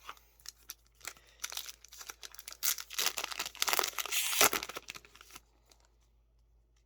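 Foil booster pack wrapper being torn open and crinkled. The rustling crackle builds to its loudest in the middle, with a sharp rip a little over four seconds in, then stops about five seconds in.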